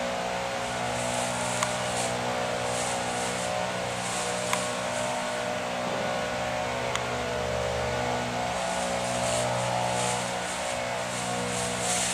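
A steady motor hum with several held tones runs throughout, from an unseen machine. In the last few seconds dry leaves rustle and crunch in bursts as two dogs run and tussle through a leaf pile.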